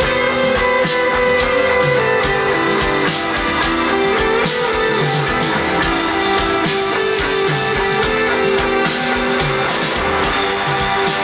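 Live rock band playing an instrumental passage: electric guitar playing sustained melodic lines over drums, heard through a festival PA.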